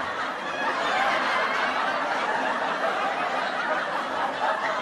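Audience laughter: a crowd laughing steadily, a laugh track following a joke's punchline.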